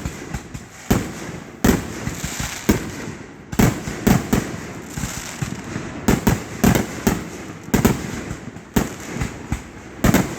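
Aerial firework shells bursting close overhead: a rapid, irregular string of loud sharp bangs, many in ten seconds.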